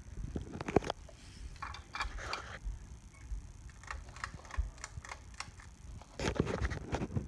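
Irregular clicking and rattling from a Hunter Brighton ceiling fan under a floor test, with a louder burst of clatter about six seconds in.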